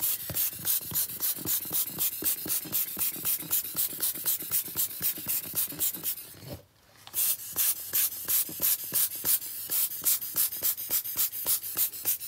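A hand-held ink applicator dabbed rapidly and repeatedly on glossy paper over wet metallic alcohol ink: a quick run of short scratchy taps, about four or five a second, pausing briefly a little past halfway before going on.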